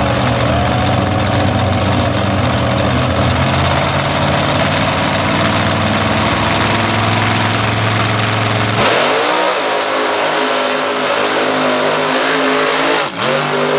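Unlimited mud bog truck's engine running loud and steady, then revving hard about nine seconds in as the truck launches and its paddle tires dig into the mud. The revs dip briefly and climb again near the end.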